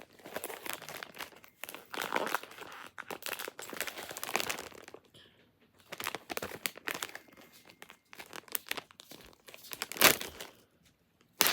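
Blind-box packaging being crinkled and torn open by hand, in irregular bursts with short pauses. Two loud, sharp crackles come near the end.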